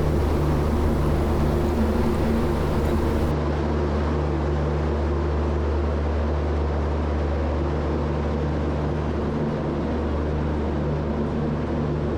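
Steady low hum of a train's diesel engine idling, with several even low tones under a wash of noise.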